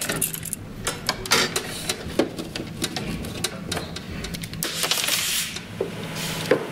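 Irregular light clicks, taps and a brief scrape from a thin steel fuel line and a small tube cutter being handled on a metal workbench while the cutter is fitted and tightened onto the line, with a faint low hum behind.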